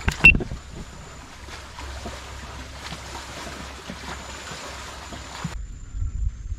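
A sharp knock just after the start, then a steady hiss of open-air background noise. About five and a half seconds in, the hiss cuts off abruptly and a low, uneven rumble takes over.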